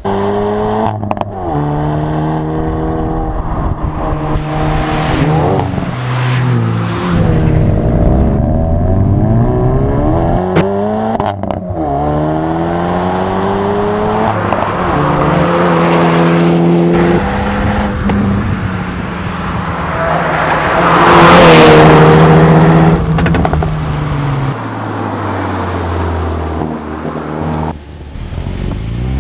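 Hyundai Veloster N's 2.0-litre turbocharged four-cylinder engine accelerating hard through the gears: the revs climb again and again and drop back at each shift. The car passes close by about twenty seconds in, the loudest moment.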